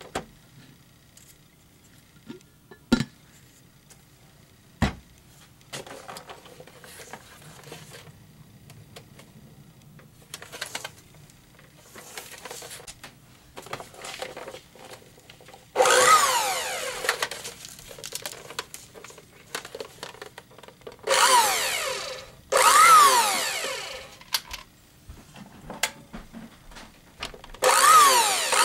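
Waring Ambassador blender's motor run in several short bursts, starting about halfway through, its whine rising and falling in pitch within each burst. Before that, light clicks and two sharp knocks of handling.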